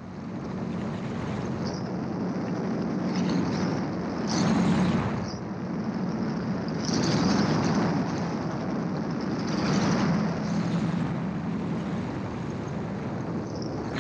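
Gyroplane climbing out just after takeoff: its engine and propeller drone steadily, and rushes of wind over the open cockpit swell and fade three or four times.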